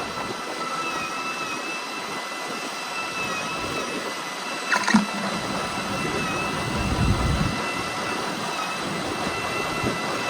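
Fishing boat's engine running steadily with a faint wavering whine over a noisy hiss; a brief sharp sound about five seconds in and a low rumble swell about two seconds later.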